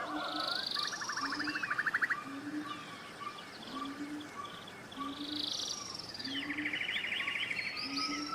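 Forest ambience with several birds calling together: buzzy high-pitched calls, a rapid rattling trill heard twice, and a short low note repeating about once a second.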